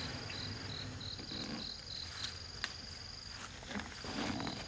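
Insects calling in the forest: one high steady whine alongside a second high call pulsing about three times a second, with a few faint clicks and a brief rustle.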